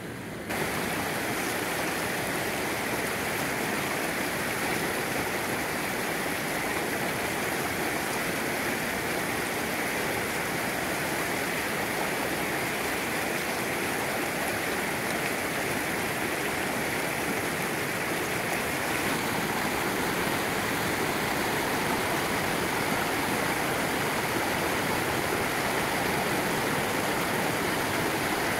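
Shallow creek water rushing steadily over rocks and riffles, coming in abruptly about half a second in.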